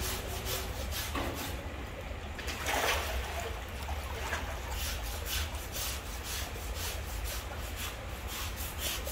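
A wooden-handled knife scraping and paring the edge of an elephant's back foot pad in repeated strokes, trimming off the ridge of pad that urine burn has separated.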